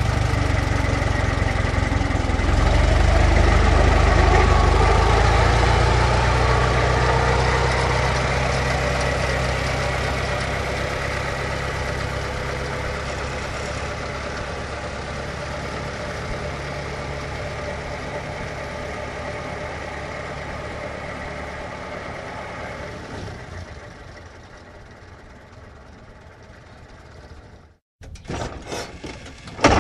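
Old car engine running, growing louder about two seconds in and then fading slowly over some twenty seconds until it cuts off near the end. A new, different engine sound starts just before the end.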